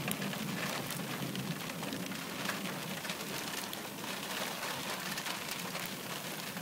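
Steady rain falling on a car, heard from inside the cabin as an even hiss dotted with many small drop hits.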